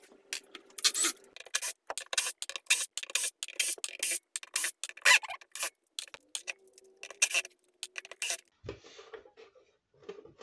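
Pointed hand tool scraping and scratching in short, irregular strokes, digging hardened blue thread-locker out of screw heads on an aluminium inverter casing. The scraping stops about eight seconds in.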